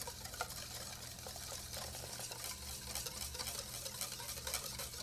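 Wire whisk beating egg yolks and sugar in a bowl, fast and steady, with fine ticks of the wires against the bowl, as hot cream is poured in to temper the yolks without curdling them.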